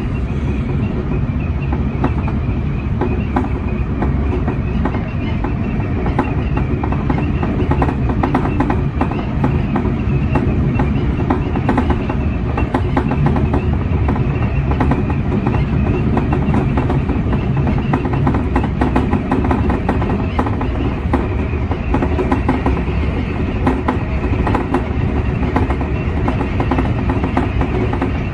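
Electric commuter train running at speed, heard from inside the front car: a steady, loud rumble of wheels on rail, with frequent clicks as the wheels cross rail joints.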